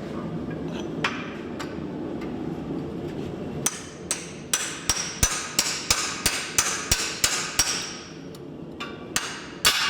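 Ringing steel-on-steel blows driving a drift through the eye of a hot axe head to enlarge it: a single strike, then a fast run of about a dozen blows at roughly three a second, and two more strikes near the end.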